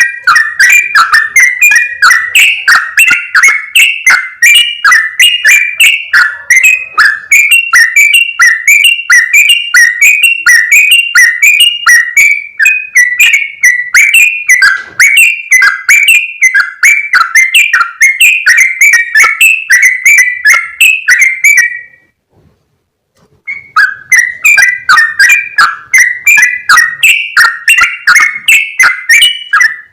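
Yellow-vented bulbuls (trucukan) chattering noisily: a dense run of quick, bubbly whistled notes several times a second. It stops abruptly about 22 seconds in and starts again about two seconds later.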